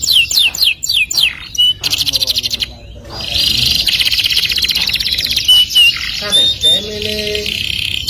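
Canary singing: a run of quick downward-sweeping whistles, then a short fast trill, and from about three seconds in a long, rapid rolling trill with brief whistled notes laid over it.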